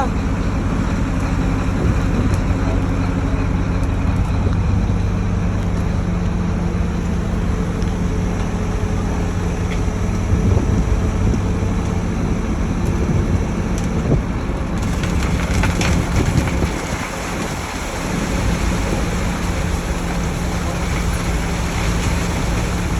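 Engine of concrete-pouring machinery running steadily. About 15 seconds in, a hiss grows louder over it.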